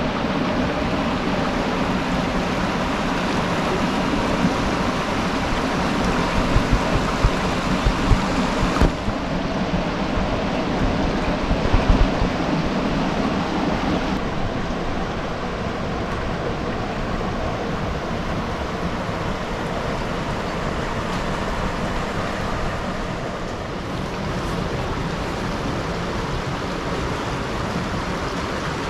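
Shallow river rushing over stones and around boulders: a steady rush of running water, with a few brief low thumps in the first half.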